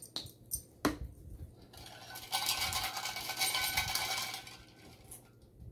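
A few sharp clicks as the plastic cap of a small water-enhancer squeeze bottle is closed, then about two seconds of clinking and rattling as a drink is stirred inside a stainless steel tumbler.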